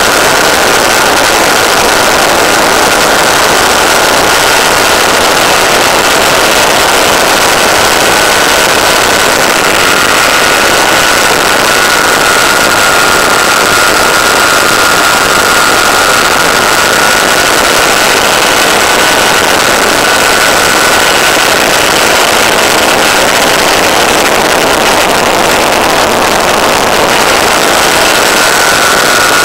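Electric motor and propeller of an Easy Glider RC plane running steadily under power, a steady high whine over a loud rushing of airflow, picked up by the onboard camera's microphone.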